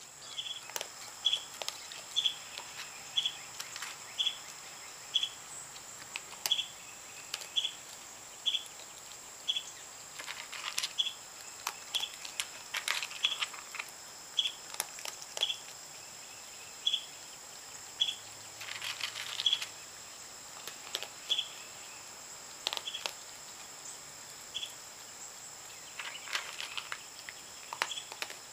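Outdoor insect chorus: a steady high drone with a short cricket-like chirp repeated about once a second. Irregular bursts of crackly crunching from a young raccoon chewing dry cat food.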